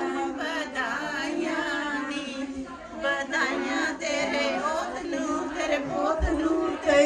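Several women's voices singing together, overlapping and wavering in pitch.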